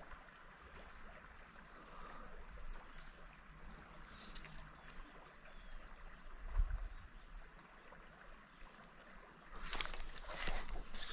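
Creek water flowing faintly, with water sloshing and splashing around a wading angler that grows louder near the end. A single low knock about six and a half seconds in.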